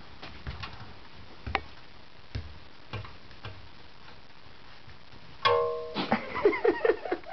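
A puppy's claws tick and tap on a tiled floor as it moves about. Near the end comes a short burst of pitched tones, then a quick run of high chirps and squeaks, the loudest part.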